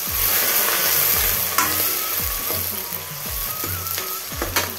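Chopped onion, garlic and green chillies sizzling as they sauté in hot oil in an aluminium kadhai, with a steel ladle stirring and scraping against the pan.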